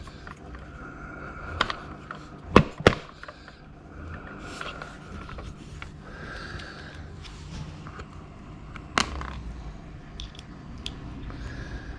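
Hand screwdriver working small screws out of an old computer's chassis and circuit board: short scraping squeaks of the screws turning, with a few sharp metallic clicks, two close together a few seconds in and one later.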